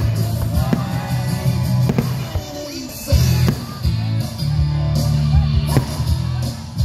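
Loud rock music with guitar over a heavy, sustained bass line, with sharp firework bangs going off through it.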